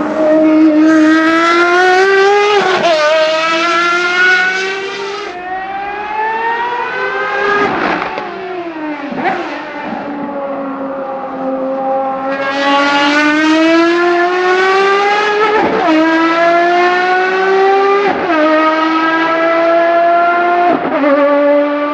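Ferrari FXX Evoluzione's V12 at full throttle, accelerating hard through the gears: the engine note climbs in pitch and drops sharply at each quick upshift, several times. Around the middle the note falls lower and softer, then builds up again through more upshifts.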